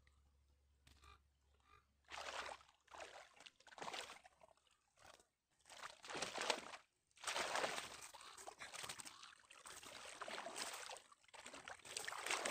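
Water splashing and sloshing as a cast net full of tilapia is hauled in by hand through shallow water, in short irregular bursts at first, then a nearly steady pouring and dripping of water off the net and fish from about halfway through as the catch is lifted.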